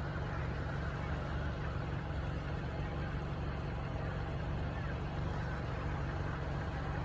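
Steady low vehicle hum, a motor vehicle's engine or road traffic running, with no distinct bird calls standing out.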